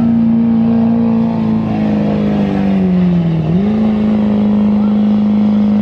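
Chevrolet Duramax diesel V8 pickup running near full throttle under the heavy load of a pulling sled. The engine note sags about three seconds in as the load pulls it down, then climbs back and holds steady.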